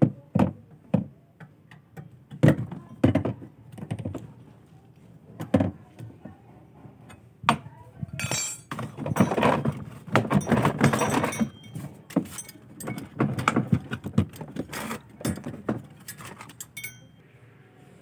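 A metal hand tool clicking and knocking against the bolts and mounting under a top-loading washing machine's tub while the gearbox mounting is loosened. Irregular clinks run throughout, with a longer stretch of rattling and scraping around the middle.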